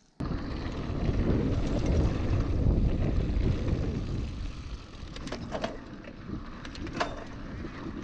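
Wind buffeting the action camera's microphone and the rumble of mountain-bike tyres on a dirt track while riding, heaviest for the first few seconds and then easing, with a couple of sharp clicks about five and seven seconds in.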